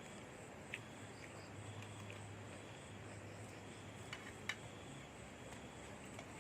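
Steady wind noise with a few short, sharp clicks, the small sounds of someone eating a meal.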